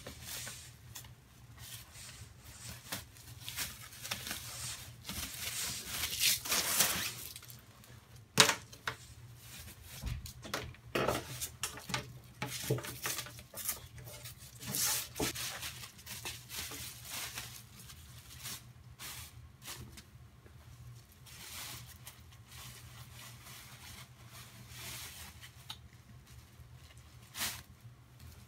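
A fabric cushion cover rustling and scraping as it is worked over a block of upholstery foam, in irregular bursts, with a few sharp knocks, the loudest about eight seconds in. A faint steady low hum lies underneath.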